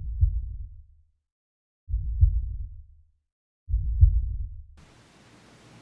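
Three deep, low thuds about two seconds apart, each dying away over about a second, with dead silence between them: a dramatic soundtrack effect that resembles a slow heartbeat.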